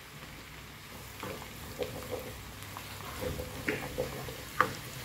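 Chopped garlic and red bird's-eye chilies sizzling in melted butter in a non-stick wok, with a wooden spatula scraping and knocking against the pan several times as it stirs.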